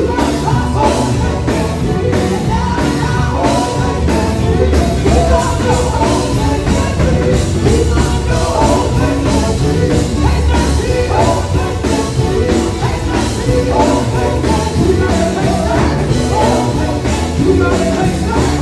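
Live gospel music: a group of women singing into microphones over a band of drum kit and electric guitars keeping a steady beat, all amplified through a PA system.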